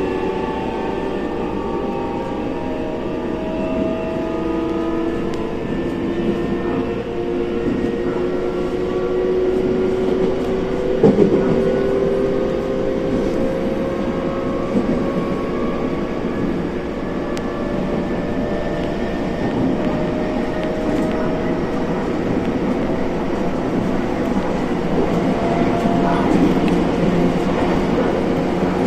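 Shinano Railway electric train heard from inside the carriage while running, with a steady rumble and a motor whine made of several tones that slowly rise in pitch as it gathers speed. A single sharp knock from the running gear comes about eleven seconds in.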